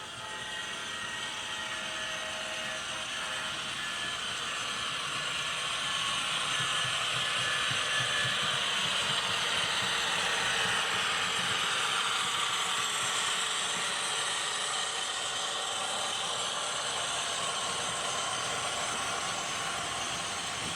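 Train running, a steady rushing noise that builds over the first ten seconds or so and eases slightly toward the end.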